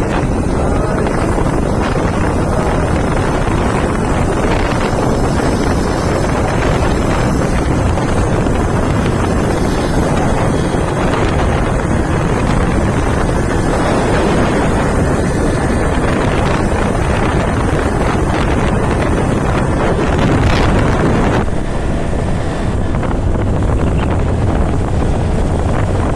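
Heavy wind rushing over the microphone of a moving vehicle, with a steady low road and engine noise underneath; the higher hiss eases a little about three-quarters of the way through.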